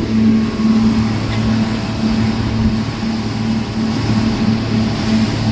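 Motorboat engine running steadily at speed: a low, even hum that pulses slightly, under a constant rush of wind and water.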